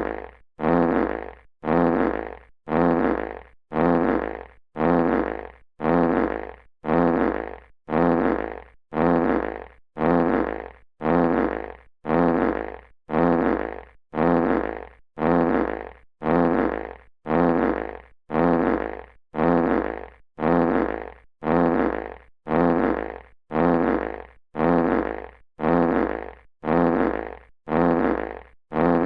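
Classic fart sound effect played on a loop: the same short, rumbling fart repeats about once a second, each one starting loud and fading out.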